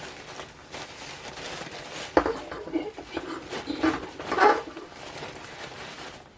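Hands working at a wrapped set of salt and pepper shakers with metal parts: a sharp click about two seconds in, then a stretch of irregular rustling and scraping as the wrapping is worked loose.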